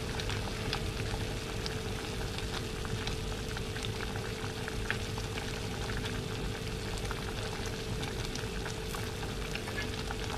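Water with pacar cina (coloured tapioca pearls) boiling hard in an aluminium pot: a steady bubbling with many small irregular pops, over a faint steady hum.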